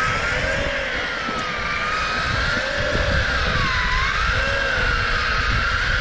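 Electric fishing reel's motor winding in line under load, hauling a hooked fish up: a continuous whine that slowly rises and falls in pitch, over low wind and water noise.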